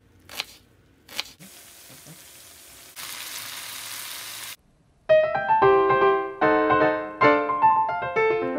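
Two sharp knocks, then a steady hiss that steps up in level and cuts off suddenly; about halfway through, solo piano background music begins and carries on as the loudest sound.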